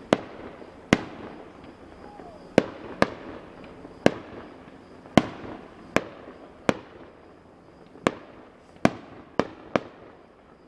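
Fireworks bursting in a steady string of about a dozen sharp bangs, each trailing off in a fading echo.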